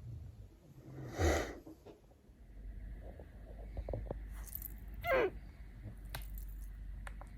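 A woman hiccuping twice, about four seconds apart, each hiccup a short sharp catch of breath; the second falls in pitch. Faint clicks follow near the end.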